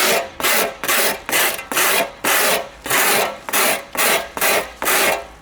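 Steel trowel scraping wet concrete in quick repeated strokes, about two and a half a second, as it works the mix onto a wall corner.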